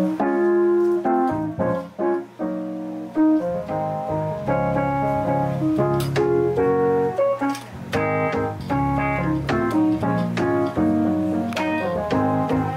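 Casio electronic keyboard played with both hands in a piano voice: sustained chords under a moving line of notes.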